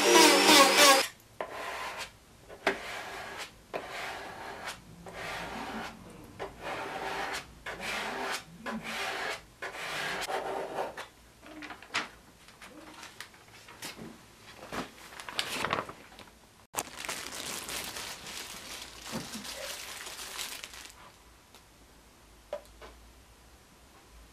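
A handheld rotary tool with a small sanding drum whines against the wooden board's edge and cuts off about a second in. After that come repeated strokes of hand rubbing over the wooden surfboard's surface, and near the end one longer unbroken stretch of rubbing.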